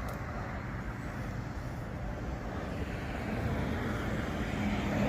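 Twin turbofan engines of a Cessna Citation XLS heard at a distance: a steady rushing rumble with a low hum that grows a little louder near the end.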